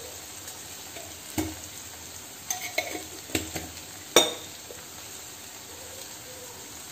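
Onion-tomato masala sizzling gently in oil in a non-stick frying pan, spice powders freshly added, with a few sharp ticks and knocks, the loudest a little past the middle.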